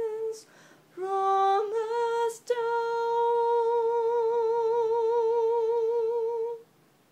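A solo voice singing unaccompanied. A held note fades out, and after a short pause two shorter notes rise in pitch. Then comes a quick breath and one long held note with wide vibrato, which stops about a second before the end.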